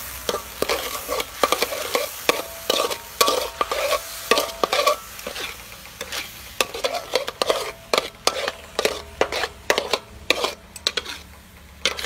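Metal spatula stirring in a wok, scraping and clicking against the metal in quick, irregular strokes, over the sizzle of chopped garlic frying in oil.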